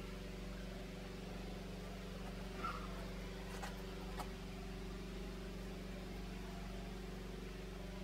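A steady low hum with a few faint clicks in the middle.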